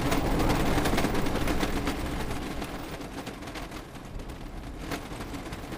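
Cartoon sound effect of a train running fast along the track, a rapid rattling clatter over a low rumble that eases off a little after the first few seconds.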